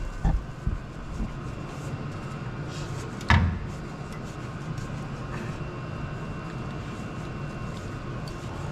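Tool and part handling during a brake job: a few soft knocks, then one sharp clank with a brief ring about three and a half seconds in, over a steady low hum.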